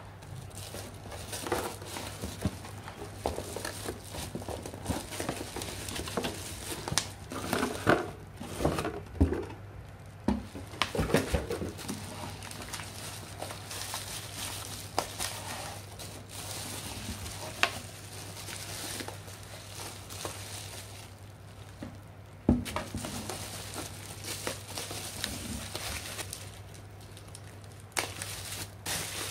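Bubble wrap crinkling and crackling irregularly as it is handled, with a few sharp clicks and knocks.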